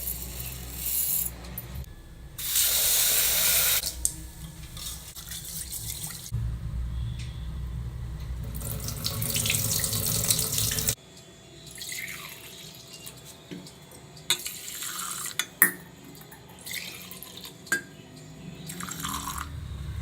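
Water running from a kitchen tap into a sink, turned on and off in several spells, with a few short knocks.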